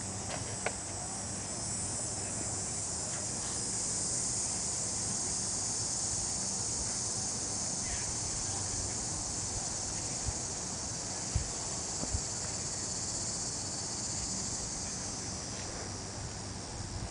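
A steady, high-pitched chorus of insects, swelling slightly a few seconds in, with a few faint knocks.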